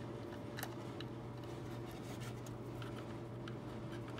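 Faint light clicks and taps of a hard drive and its cables being handled and pushed into a desktop computer's drive bay, over a steady low hum.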